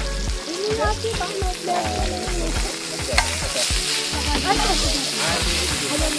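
Frenched rib chops sizzling in oil on a flat-top griddle, with a sharp click of metal tongs against the griddle about three seconds in. Background music with a bass line plays underneath.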